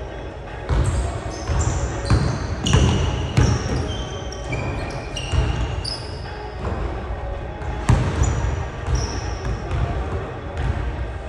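Basketball being dribbled on a hardwood gym floor, with repeated low bounces and a few sharper thumps, while sneakers squeak on the court in short high-pitched chirps during one-on-one play.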